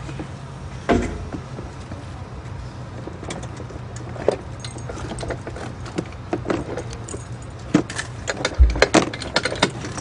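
Scattered metallic clicks and knocks as a rescuer handles a pneumatic trench shore, with a knock about a second in and the loudest clatter and a low thump near the end, over a steady low engine hum.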